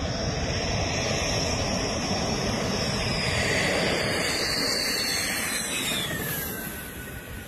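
Dassault Rafale fighter jet landing: the loud rush of its twin turbofan engines with a high whine that drops sharply in pitch as the jet passes, about six seconds in, after which the noise starts to fade.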